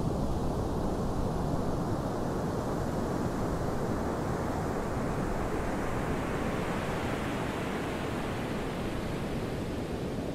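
Sea surf breaking and washing up a sandy beach as a steady rushing noise, swelling for a few seconds in the middle as a wave comes in, then easing off.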